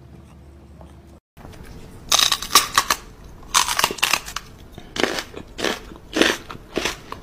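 Loud, wet smacking kisses from a man's lips pressed against a cat's face. They start about two seconds in and come in quick clusters every half second to a second.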